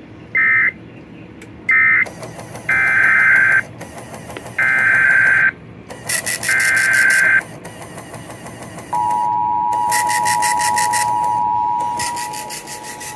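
Emergency Alert System data bursts: two short screeching bursts, then three harsh digital bursts of about a second each, a second apart, typical of a SAME end-of-message. About nine seconds in, the steady two-tone EAS attention signal begins and holds for about three seconds before softening.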